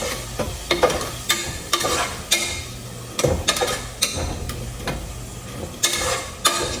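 A spoon stirring and scraping in a pan of spices frying with a sizzle, the spoon tapping and scraping against the pan again and again, about every half second to second.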